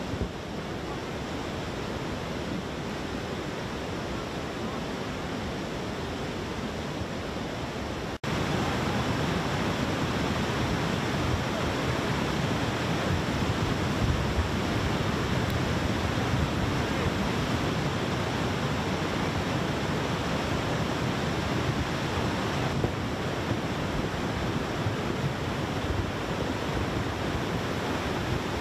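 A debris flow of mud and rocks rushing down a stream channel: a steady rushing noise that becomes louder and deeper after a cut about eight seconds in.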